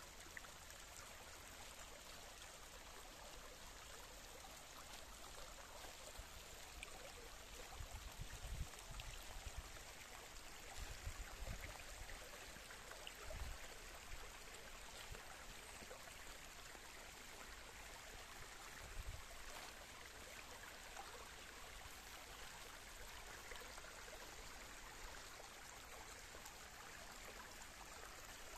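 Small woodland stream flowing over stones as a faint, steady wash, with a few brief low rumbles in the middle.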